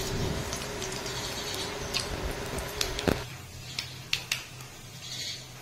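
Nigella seeds (kalo jira) sizzling in hot mustard oil in a kadai as a tempering, with scattered sharp pops over a low steady hiss that drops away about three seconds in.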